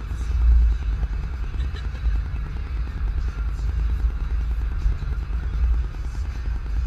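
A car driving on a wet highway, heard from inside the cabin: a steady low rumble of engine and tyres, with a hiss of tyres on the wet road.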